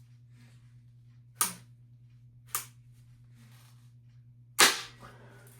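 Three sharp blows striking a ceiling fan as it is smashed apart, about a second apart, with the third, near the end, the loudest, over a faint steady hum.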